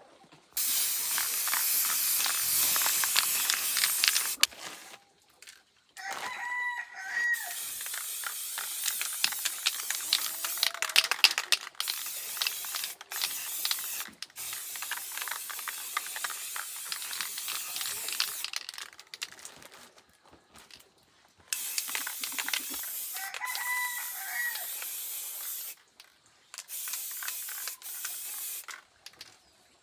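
Chickens calling twice, short calls that bend in pitch, over repeated spells of loud, even hissing noise lasting a few seconds each.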